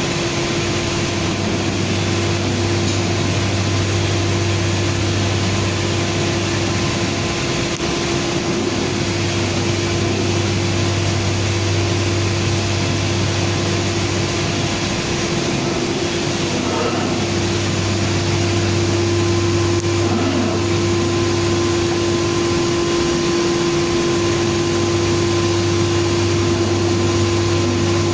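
Biesse Rover C 6.50 CNC machining centre running: a steady whine from its router spindle over a constant machine hum and noise.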